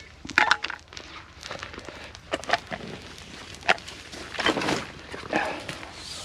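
A spoon clinking and scraping in a metal camp pan while eating, as irregular clicks and short scrapes about every second.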